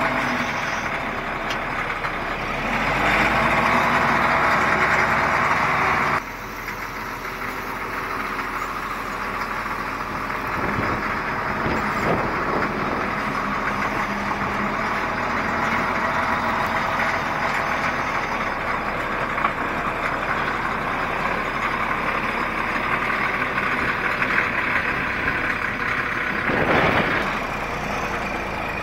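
Caterpillar 14G motor grader working close by: its diesel engine running under load while the moldboard and tyres grind through crushed gravel. The sound drops suddenly about six seconds in and swells briefly near the end.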